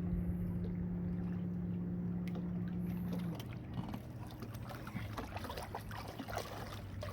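Boat's outboard motor running steadily at trolling speed. Its higher hum cuts out about a third of the way in, leaving a lower steady hum, with a few light knocks and clicks after that.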